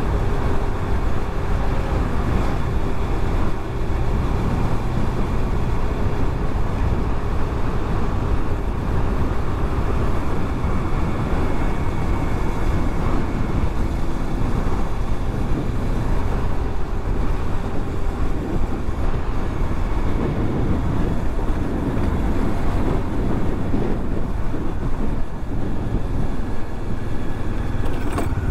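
Bajaj Dominar 400 motorcycle's single-cylinder engine running steadily under way, mixed with constant wind rush on the microphone.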